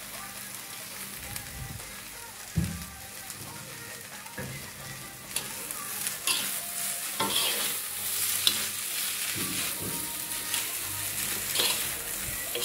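Noodles and green vegetables stir-frying in a wok: a steady sizzle, with the spatula scraping and knocking against the pan, more often in the second half.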